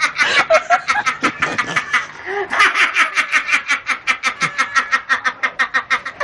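Rapid, high-pitched laughter: two long runs of quick, even pulses with a short break about two seconds in.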